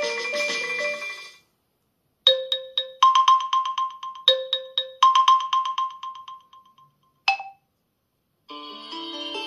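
OnePlus 10 Pro ringtones played back one after another. A keyboard-like melody ends, and after a short gap a bright ringtone plays: two phrases of quickly repeated chiming notes that fade out. A short blip follows, and about a second later the next ringtone begins with sustained, layered tones.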